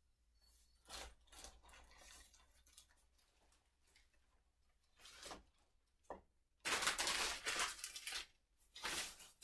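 The paper and plastic wrapping of a sterile pack rustling and crinkling in several bursts as it is unwrapped and its sheet spread out. The longest and loudest crinkling comes about seven seconds in.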